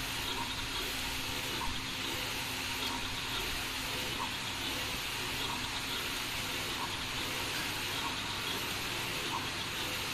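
Flatbed DTG t-shirt printer running as its print-head carriage sweeps back and forth, a steady hiss with faint clicks about once a second.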